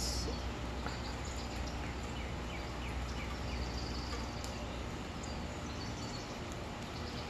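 Backyard ambience with faint, scattered short bird chirps and a low steady rumble that fades about five seconds in.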